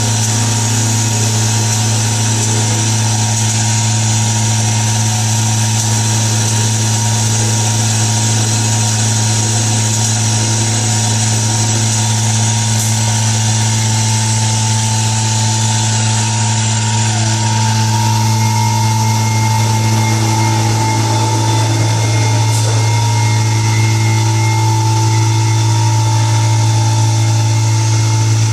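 YL 12242R+B wood CNC router running: a steady machine hum with a high whine over it, the higher tones shifting a little about two-thirds of the way through.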